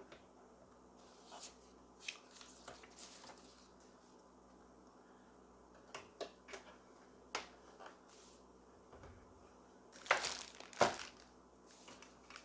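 Plastic and paper packaging being handled: short bursts of crinkling and rustling mixed with light clicks, with louder rustling about ten seconds in.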